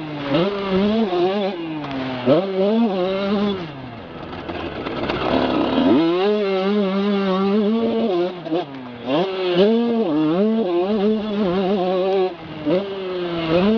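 Motocross bike engine close to the rider's neck-brace camera, rising and falling in pitch again and again as the throttle opens and closes. About four seconds in it drops back under a rush of wind noise, then climbs steeply again around six seconds.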